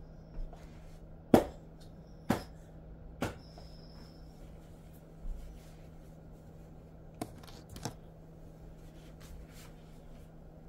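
A few scattered sharp knocks and clicks, the loudest about a second and a half in, over a faint steady hum.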